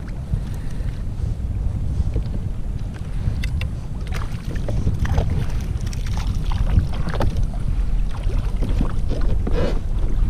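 Wind buffeting the microphone with a steady low rumble, with water lapping and scattered light splashes and clicks in the second half as a small fish is reeled up to a kayak.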